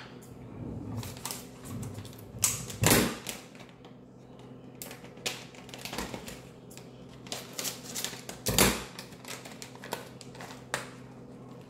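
Irregular clicks, taps and knocks of plastic food containers and packaging being handled on a kitchen counter, with two louder thuds, about three seconds in and about eight and a half seconds in.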